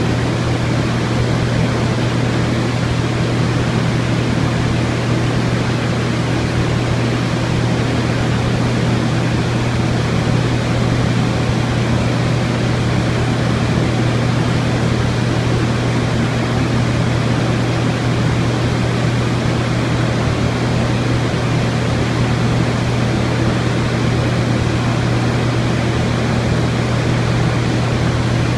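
Viking 8500 LGR low-grain refrigerant dehumidifier running: a steady hum under an even rush of air from its blower.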